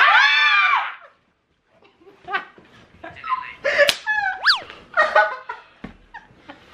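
Excited high-pitched screaming from a small group, arching up and then falling, cut off about a second in. After a moment's silence come laughter and squeals, with a sharp hand clap near the middle.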